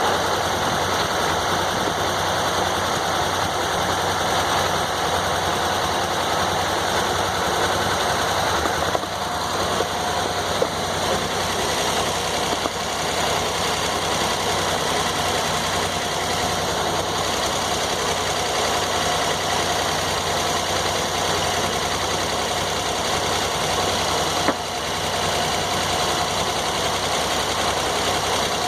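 Sawmill engine running steadily, with short dips in level about nine seconds in and again near the end.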